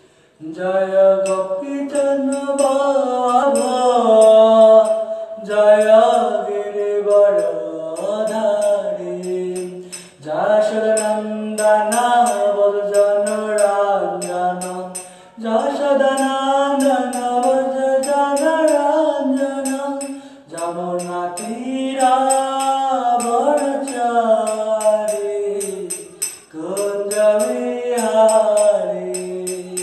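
A man singing a slow melodic song solo, in long held phrases with short breaths between them, over a light, steady beat of high ticks.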